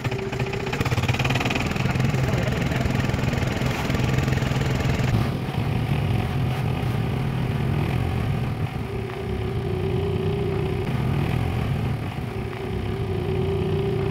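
A small motorboat's engine running steadily as the boat moves along, with the rush of water and wind heard from on board.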